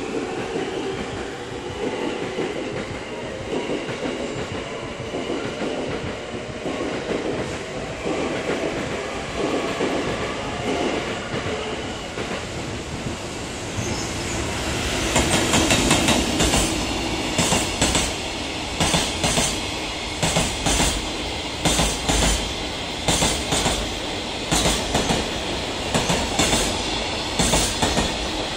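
JR Freight EF210 electric locomotive hauling a container freight train, approaching and passing about halfway through, then container wagons rolling by with a regular clickety-clack of wheels over the rail joints, about once a second.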